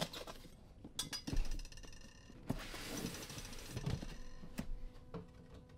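A cardboard box being handled and opened with a small knife: a few sharp clicks and knocks, one with a brief metallic ring, then about a second and a half of scraping, with dull thuds of the box against the table.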